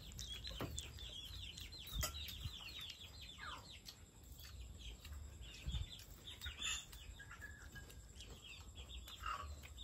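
Chickens calling: a steady stream of short, high peeps that fall in pitch, several a second, thinning out in the middle.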